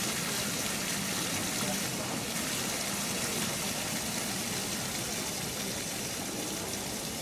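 Fountain jets splashing steadily, an even rush of falling water.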